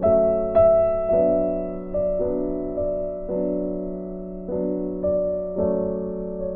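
Background music: soft piano or electric-piano notes played one after another, each ringing and fading before the next.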